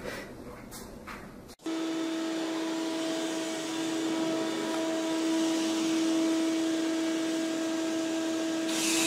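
The electric motor of an air machine running through a wide black flexible hose. It comes in suddenly about a second and a half in and hums steadily over a rush of air.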